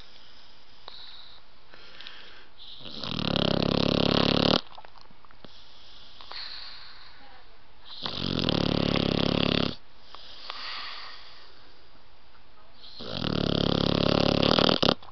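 Blue nose pit bull puppy snoring in her sleep: three long, pitched snores about five seconds apart, each swelling and then stopping abruptly, with soft breaths between.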